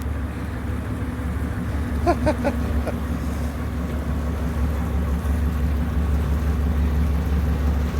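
Fishing boat's engine running steadily, a constant low hum. A short voice briefly calls out about two seconds in.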